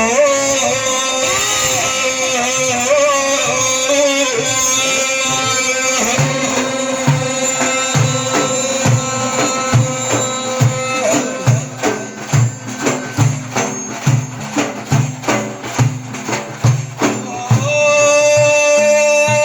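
Instrumental interlude of Middle Eastern folk music: an ornamented, bending melody over a steady drum beat with tambourine. About halfway through the melody drops out, leaving a run of quick drum and tambourine strokes, and near the end a long held note comes back in.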